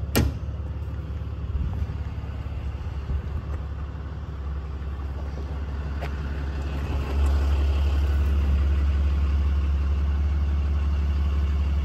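The 2016 Ram 5500's 6.7 L Cummins inline-six turbo diesel idling as a steady low hum, which grows louder about seven seconds in. A single sharp knock comes right at the start.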